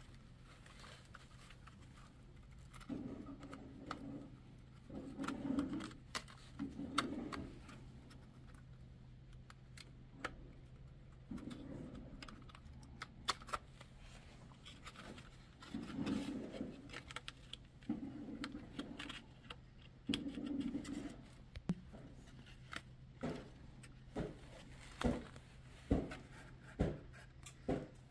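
Plastic instrument-cluster housing being pried and worked apart by hand: scattered clicks and snaps with short spells of rubbing and scraping.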